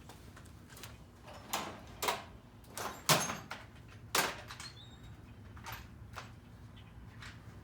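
A series of short, irregular clunks and scrapes from hand work on a Murray push lawnmower, with no engine running.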